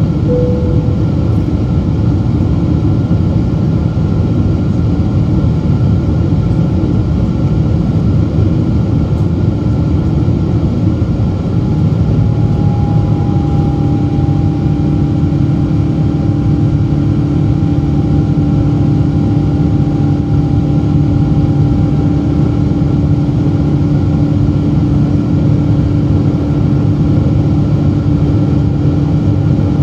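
Boeing 777-200's GE90 turbofan engine running at climb power, heard from a cabin seat beside it as a loud, steady rumble with airflow noise. About twelve seconds in, a new steady hum and a higher whine join it.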